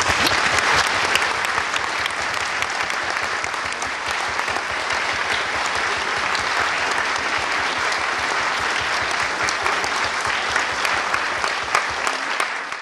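Audience applauding steadily with many hands clapping. The applause cuts off suddenly at the end.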